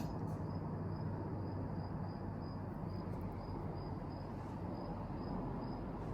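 High, thin insect chirping repeating evenly about two to three times a second over a steady low background rumble.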